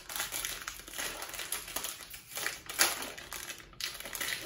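Plastic snack wrapper crinkling and crackling as it is pulled and torn open by hand, with one sharper crackle a little under three seconds in.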